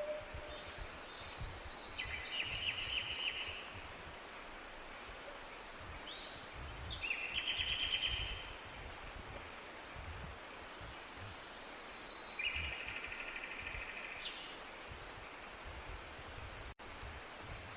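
Bird song: three trilled song phrases a few seconds apart, with a thin steady whistle within the third, over a low rumble of background noise.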